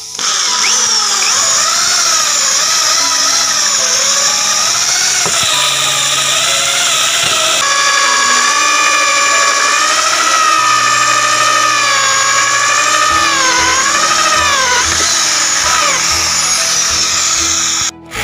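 Electric drill running a hole saw through the wall of a plastic drum, its motor pitch wavering up and down as the cut loads it. Background music plays underneath.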